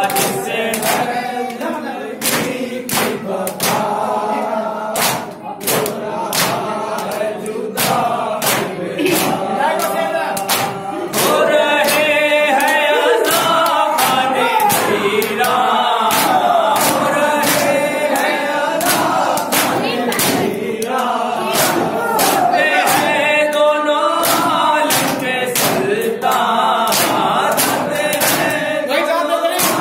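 Male voices singing a noha, a Shia mourning lament, through microphones, with other voices joining in, over a steady beat of sharp hand slaps from chest-beating (matam).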